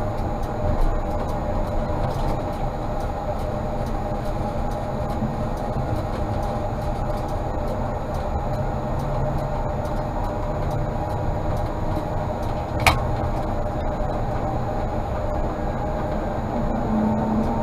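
Tatra T3 tram running on rails: a steady rumble with a constant motor whine. There is one sharp click about 13 seconds in, and near the end a whine starts rising as the tram speeds up.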